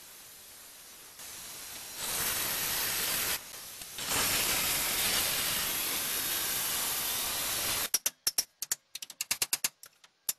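Grinder grinding down the rivet ends on a steel truck frame rail: a loud, even hiss that starts about a second in, grows louder, dips briefly, then cuts off about eight seconds in. A quick, irregular run of sharp knocks follows.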